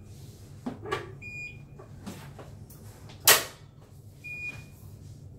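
Bruno curved stairlift's drive running as the seat travels along the rail, a steady low hum. A few sharp knocks come through, the loudest about three seconds in, and two short high tones.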